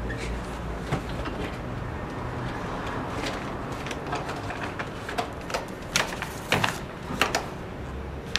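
Steady low room hum, with a run of irregular sharp clicks and rustles from about five seconds in: someone handling things at an office desk.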